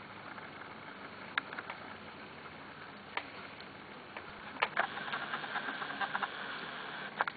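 Corgi puppies' claws and paws tapping and scrabbling on a slide: scattered single clicks, then a dense run of quick taps about five to six and a half seconds in.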